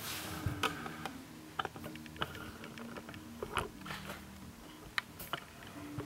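Handling noise: scattered faint clicks and small knocks, about half a dozen, over a low steady hum.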